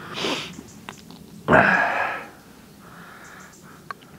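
A person sniffing and breathing out hard: a short sniff at the start, a louder rush of breath about one and a half seconds in, a faint breath near three seconds, and a small click just before the end.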